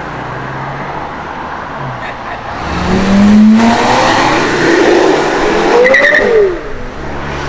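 Porsche Carrera GT's V10 engine revving up with its pitch rising, then a loud pass as the car goes by, the engine note rising and then falling, before the sound drops off about six and a half seconds in.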